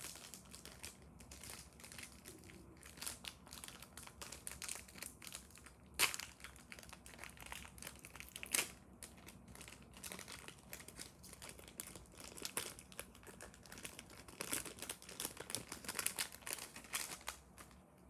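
Quiet crinkling and crackling of a foil booster-pack wrapper being handled, mixed with cards being handled. There are two sharper crackles, about six and eight and a half seconds in.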